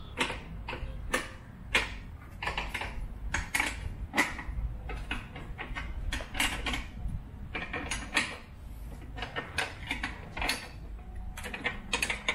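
A steel combination wrench working a nut on a UTV roll-cage mount, giving irregular metallic clicks and taps, some in quick clusters.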